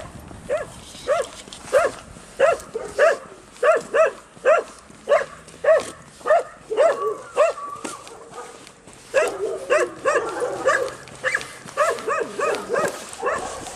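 Husky making short, pitched whining yips in a steady run, about one and a half a second, with a short pause partway through.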